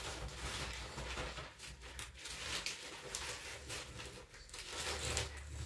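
Potting substrate poured from a plastic bag into a plastic trough planter: an irregular patter of falling soil mixed with rustling of the bag.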